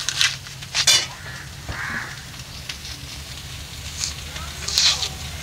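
Red pomelo flesh being pulled apart by hand and stripped from its membrane: short, wet, crackling tears, loudest just at the start, about a second in, and near the end.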